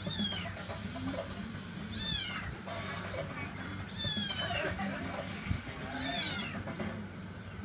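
Young kitten meowing: four high-pitched cries, each falling in pitch, about two seconds apart. This is a kitten crying at being put down, which its owner says she does whenever she is not held.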